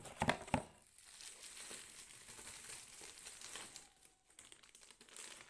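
Plastic packaging crinkling as a small camera lens is unwrapped by hand, with a few sharp clacks in the first second.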